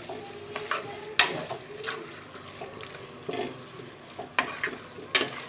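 Metal ladle stirring goat intestines through masala in a pressure cooker pot, scraping and knocking sharply against the metal several times over the sizzle of frying.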